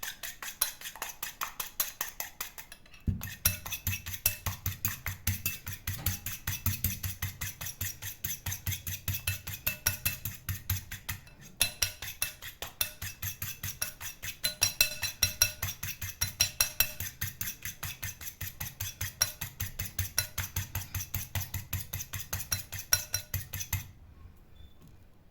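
Egg whites beaten by hand in a bowl: a metal utensil clinks against the bowl in a fast, steady rhythm of about five strokes a second, with a short pause about three seconds in, and stops shortly before the end. The whites are being whipped until foamy.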